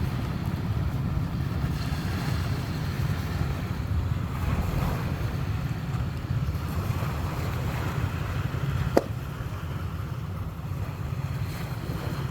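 Wind rumbling steadily on the microphone with sea waves washing behind it. One sharp click about nine seconds in.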